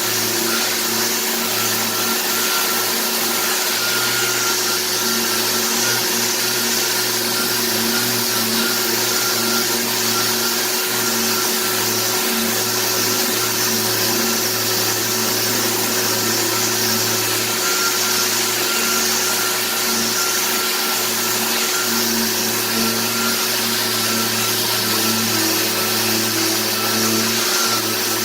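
Electric power sander running steadily with an even hum and hiss while sanding down the wood veneer of a piano case.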